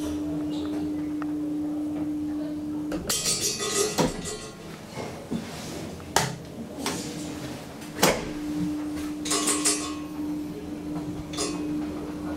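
Thyssen traction elevator car: a steady hum, broken off for a few seconds in the middle, with sharp metal knocks and clattering rattles from its loose doors and gates.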